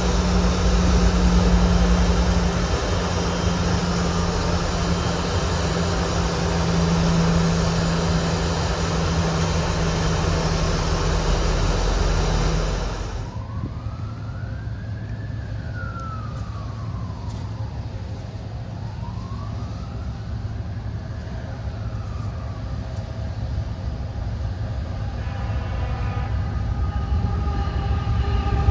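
Loud, steady engine rumble with a low hum, likely a diesel locomotive, which cuts off suddenly about halfway through. Then a distant emergency-vehicle siren wails up and down twice. Near the end a train's sound grows louder.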